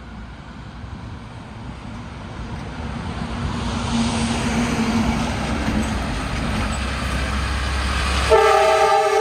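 Diesel semi truck approaching and passing close by, its engine getting louder over the first few seconds and then running steadily. Near the end a loud horn blast starts, a chord of several notes.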